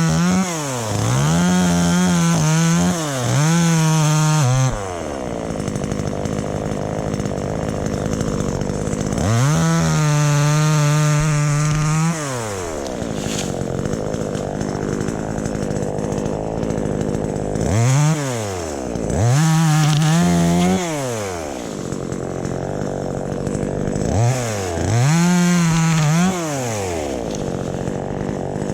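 Two-stroke chainsaw revved to full throttle again and again, each burst held for one to three seconds before dropping back to idle. The bursts come close together near the start, middle and end, with longer stretches of idling in between.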